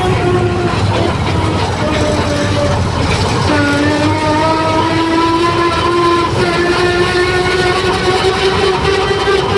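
Combine harvester running as it drives, its engine giving a steady rumble with a whine that climbs slowly in pitch from about three and a half seconds in.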